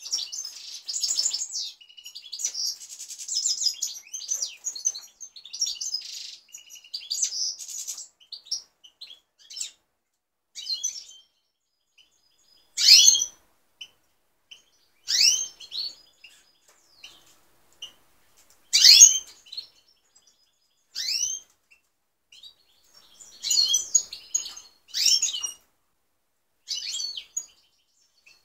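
Caged European goldfinches singing: a fast, continuous twittering song for about the first eight seconds, then separate loud, sweeping calls and short twittering phrases a couple of seconds apart.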